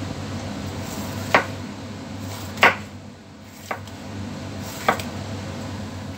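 Kitchen knife slicing an onion, with four sharp cutting strokes over a steady hum. The strokes are the blade breaking through the onion rather than cutting softly, a sign that the knife is not sharp enough.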